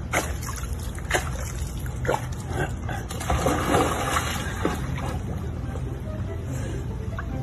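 Water splashing and sloshing as a golden retriever swims in a swimming pool; the splashing is loudest about three to four seconds in.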